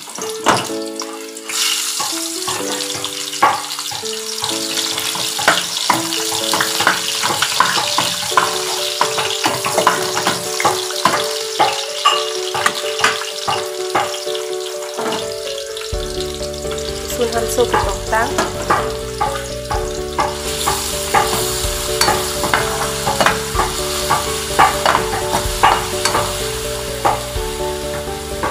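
Meat and sliced onions frying in hot oil in an aluminium wok, sizzling steadily with many small crackling pops.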